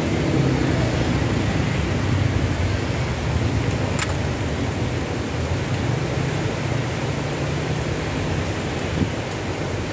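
Steady roadside street noise with a low rumble, and one sharp click about four seconds in.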